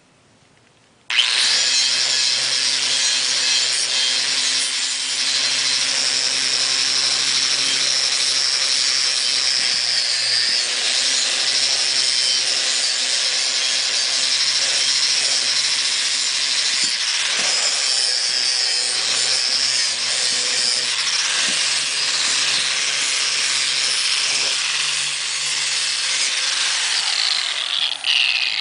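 Angle grinder with a bristle disc switched on about a second in and run steadily against a flat metal drill press part, cleaning its surface, a steady high whine over the motor hum. Near the end it is switched off and winds down.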